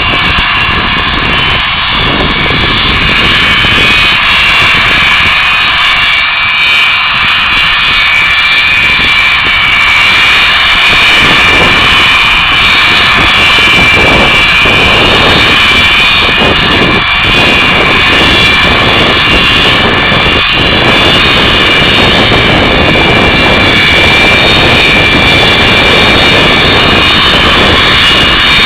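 The four Progress D-18T turbofans of an Antonov An-124 Ruslan taxiing: a loud, steady jet whine with several held high tones over a low rumble, growing slightly louder.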